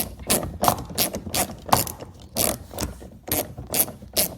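Hand ratchet with a Torx bit clicking as it is swung back and forth to drive a door panel bolt home, about three clicks a second.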